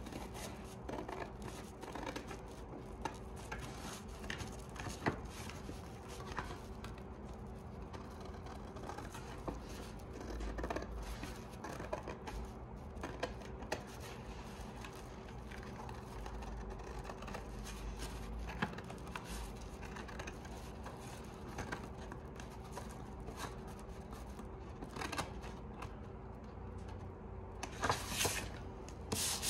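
Hand scissors snipping through a large white template sheet in a string of short cuts, with the sheet rustling as it is handled. The cuts get louder near the end.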